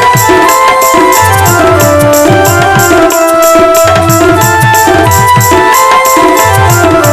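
Instrumental passage of a Sambalpuri bhajan: tabla-like hand drums keeping a steady beat under a melody of long held notes, with no singing.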